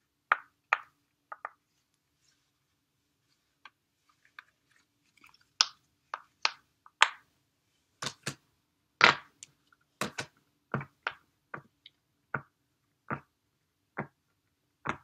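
Clear silicone push-pop fidget toy having its bubbles pressed in one at a time: a string of short, separate pops. A few come early, then after a pause they come more often, about one to two a second.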